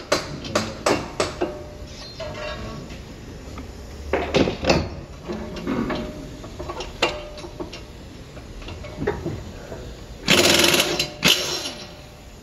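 Hammer blows on the steel steering knuckle and wheel hub, struck about three a second for the first second or so, then scattered knocks and clinks of tools on metal. About ten seconds in, a loud rushing burst of air from a shop air tool lasts about a second.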